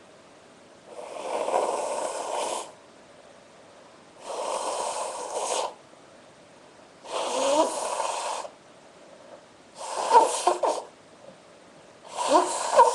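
A woman blowing her nose hard into a handkerchief five times, about every three seconds, each blow a rushing noise lasting over a second; the last two end in squeaky, honking whistles.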